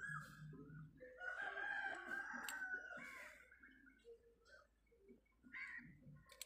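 A rooster crowing: one long drawn-out call from about one to three seconds in.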